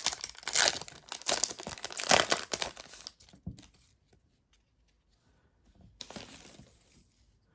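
Foil booster pack wrapper crinkling and tearing open for about three seconds, then a shorter, softer rustle of the wrapper about six seconds in.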